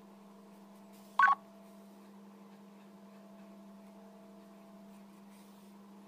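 A single short electronic beep, with two tones sounding together, about a second in, over a steady low hum.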